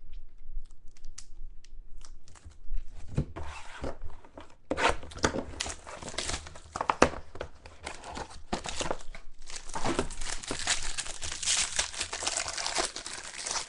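Plastic card wrappers or sleeves crinkling and tearing as trading cards are handled, in a run of irregular rustles and clicks that grows denser and louder near the end.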